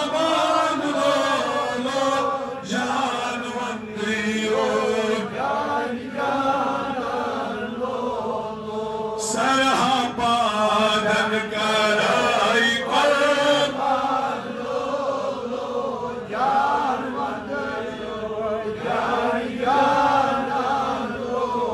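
Unaccompanied male voice chanting a Kashmiri naat, a devotional song in praise of the Prophet, in long melodic phrases that rise and fall.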